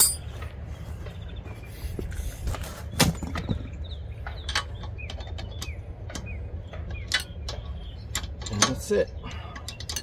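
Scattered metallic clicks and knocks of wrenches on a rear brake caliper bolt as it is tightened, the strongest about three seconds in.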